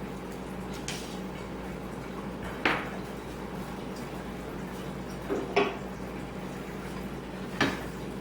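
Short knocks and clatters from a plastic ZeroWater filter cartridge and tools being handled, four separate knocks spread across a few seconds, over a steady low hum.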